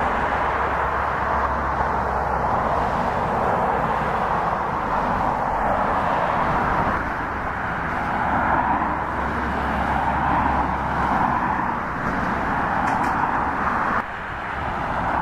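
The jet engines of an Emirates Boeing 777-300ER, GE90-115B turbofans, running steadily at low taxi thrust with a continuous jet hiss. The sound dips a little near the end.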